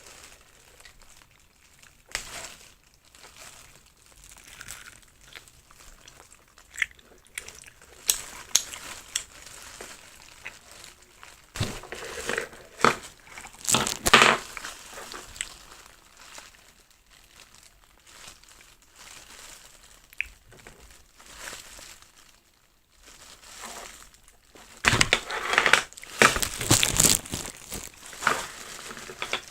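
Plastic packaging crinkling and rustling as it is handled, in irregular bursts with sharp clicks, busiest about halfway through and loudest near the end.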